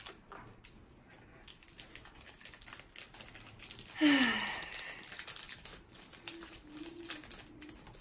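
Plastic-foil wrapper of a Topps baseball card pack crinkling and tearing as it is opened by hand, with small clicks of the cards being handled. About halfway through comes a short, loud voice-like sound falling in pitch, most likely from the child.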